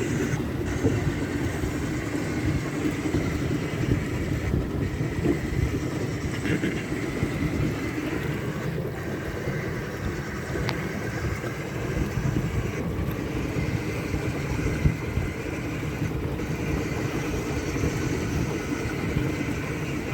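Motorboat engine running steadily under way, with a constant low drone.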